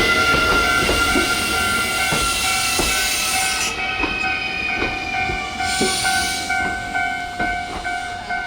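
Kintetsu Nara Line train running past a level crossing, its wheels knocking over the rail joints as the rush of the passing train eases off. Steady tones from the crossing alarm ring along with it and stop near the end.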